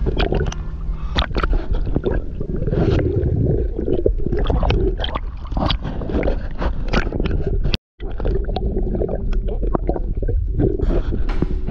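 Sea water churning and gurgling around an action camera in a choppy sea, with many sharp clicks and knocks over a steady low rumble. The sound cuts out completely for a moment about two-thirds of the way in.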